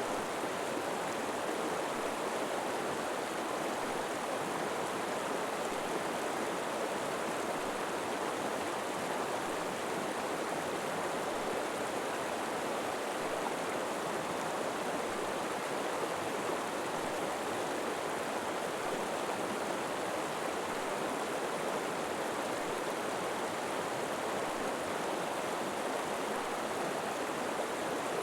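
River water flowing over rocks: a steady, even rush of running water with no pauses or changes.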